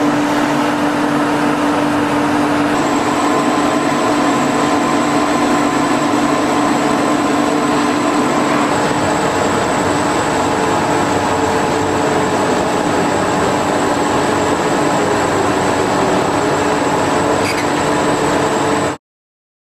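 Industrial machinery of a waste gasification plant running steadily: a loud continuous mechanical drone with a steady hum. About three seconds in the drone changes and a thin high whine joins it. It cuts off suddenly near the end.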